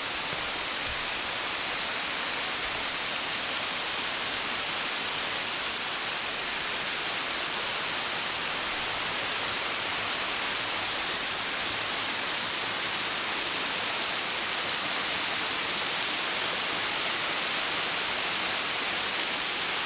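A steady, even rushing noise with no breaks or changes, which cuts off abruptly near the end.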